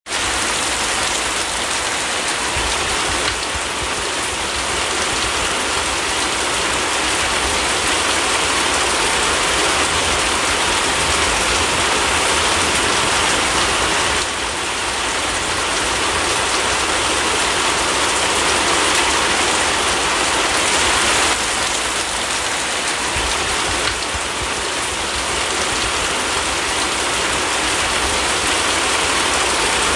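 Steady rain falling: a dense, even hiss of countless drops with a fine crackle, shifting slightly in level a few times.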